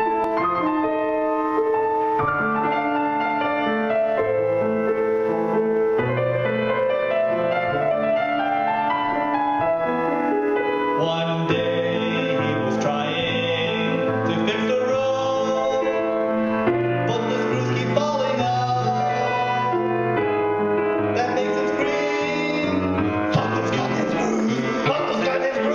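A grand piano played in chords, with a man singing along to it.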